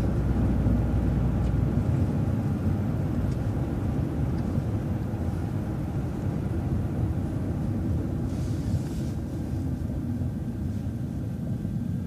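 City transit bus running down the road, heard from inside the cabin: a steady low rumble of engine and road noise that eases off slowly, with a brief hiss about eight seconds in.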